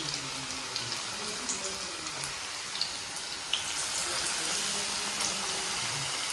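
Battered brinjal slices (baingani) deep-frying in hot oil in an iron kadhai: a steady sizzle with scattered small pops and crackles, a little louder from about halfway, as fresh pieces go into the oil.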